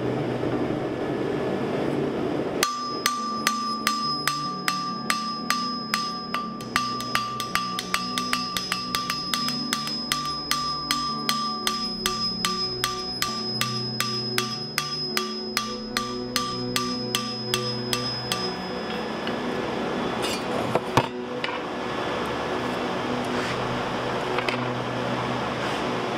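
A hammer strikes a copper sheet on a steel anvil in a steady rhythm of about two blows a second, dimpling the copper, and the anvil rings with each blow. The hammering stops about two-thirds of the way through, and a single sharp knock follows.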